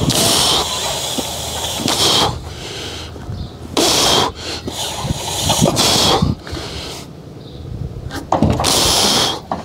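Metal-faced sandwich roof panel being shoved across the roof, scraping in about five short bursts of about half a second each.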